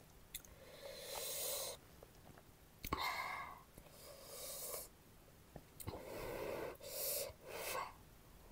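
A person breathing heavily through the mouth: about six separate puffs of breath, each up to a second long, with short pauses between them.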